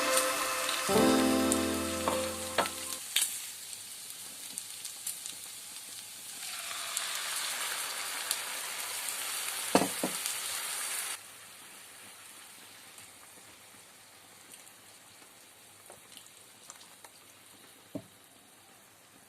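Food sizzling in a frying pan, with a few sharp knocks of a utensil. The sizzle grows louder about six seconds in, cuts off suddenly around eleven seconds, and leaves a faint hiss with occasional clicks.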